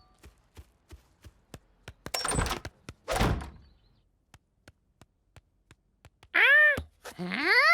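Cartoon sound effects: a run of quick light taps and two short noisy swishes, then two loud voiced calls from a cartoon monkey near the end, the first rising and falling, the second sliding upward.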